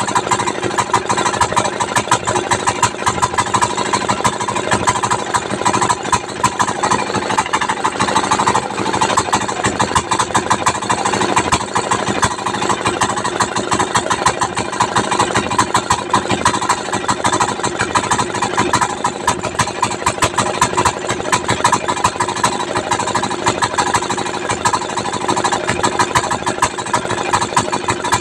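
A 192F single-cylinder, air-cooled four-stroke diesel engine running steadily, a fast, even train of firing knocks out of a short exhaust elbow with no muffler fitted.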